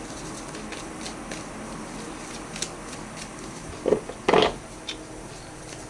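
Tarot cards being handled, with a few faint ticks and then two short rustling, slapping sounds about four seconds in, over a low steady room hum.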